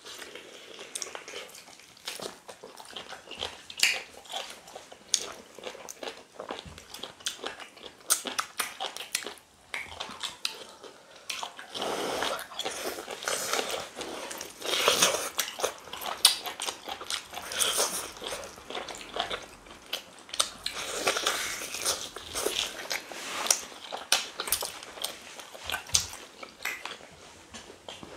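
Two people chewing and lip-smacking as they eat potato fufu dipped in slimy ogbono soup, with meat, by hand: a steady run of irregular wet smacks and small clicks.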